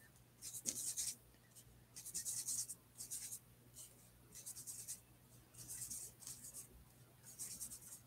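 Paintbrush mixing acrylic paint on a palette: a series of faint, brief brushing swishes, about one a second.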